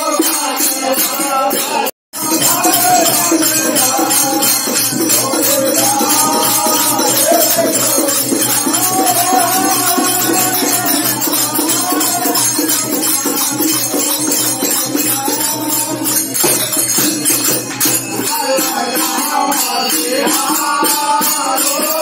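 Group of men singing a phag (fagua) Holi folk song together over fast, steady jingling hand percussion. The audio cuts out for a moment about two seconds in.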